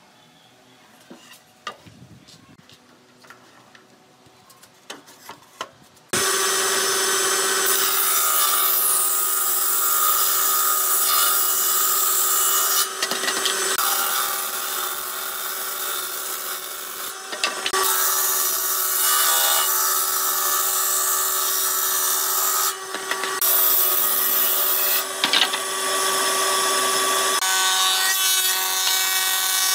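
A Hitachi combination woodworking machine cutting wood: after a few quiet seconds with light knocks of boards being handled, the machine starts up loud and suddenly about six seconds in, its table saw ripping boards over a steady motor hum, with brief dips as each cut ends. Near the end the cutting sound changes as a board feeds through the machine's thickness planer.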